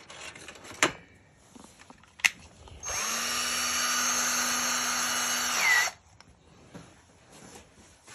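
Two sharp clicks, then an electric drill runs for about three seconds at a steady whine, boring a hole in a car's dashboard for speaker wire, and stops.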